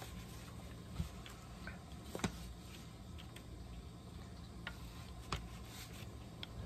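Faint handling of paper and board on a cutting mat: a few scattered light taps and clicks, about four in all, over a low steady background hum.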